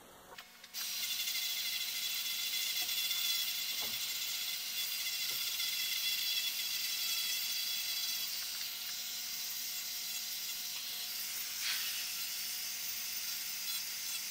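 Handheld rotary tool with a small sanding drum running at high speed and sanding a small piece of wood: a steady high hiss with a faint motor whine, starting about a second in.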